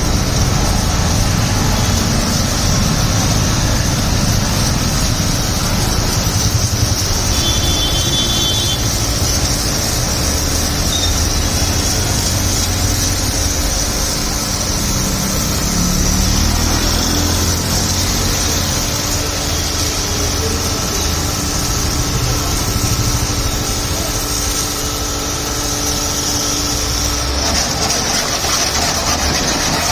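High-pressure car washer pump running steadily: a constant motor hum with a steady high hiss.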